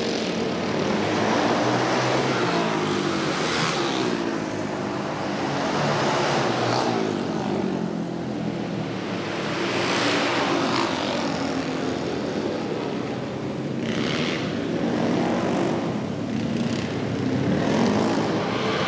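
Flat-track racing motorcycles running hard around a short dirt oval, their engine notes rising and falling in pitch and swelling loud several times as bikes pass.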